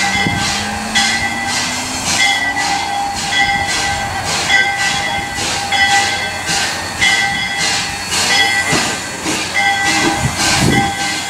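Steam locomotive bell ringing steadily, about two strokes a second, as the engine creeps into the station: the usual warning bell of a train arriving.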